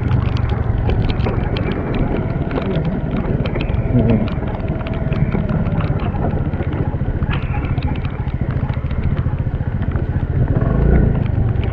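Motor scooter running at low speed over a rough, wet dirt track: a steady low engine and ride rumble, broken by frequent short clicks and knocks.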